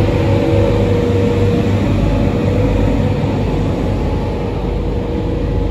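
Diesel locomotive 4201, a 42 class, running with a loud, steady drone and a low hum from its engine close by.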